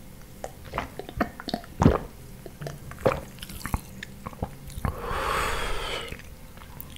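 Close-miked gulps and swallows of orange soda, with wet mouth clicks, over the first few seconds. About five seconds in there is a breathy rush of air lasting about a second.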